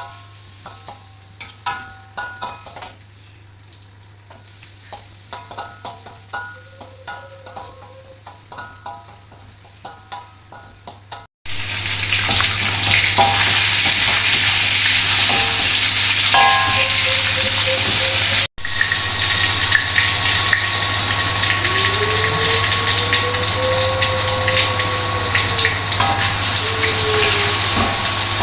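Cooking in a pan: for the first ten seconds or so, quiet clinks and scrapes of a utensil, then loud steady sizzling of food frying in hot oil starts abruptly, with a brief break about seven seconds later.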